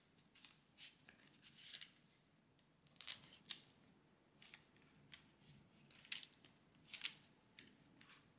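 A knife cutting through a tray of brownie topped with chocolate Easter eggs and almonds: about ten faint, short, crisp crunches and scrapes at uneven intervals.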